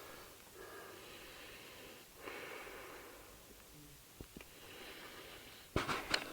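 Sleeping man's heavy breathing through the nose while he wears a Breathe Right anti-snoring nasal strip: three slow, hissy breaths, with a burst of short, sharp clicks near the end.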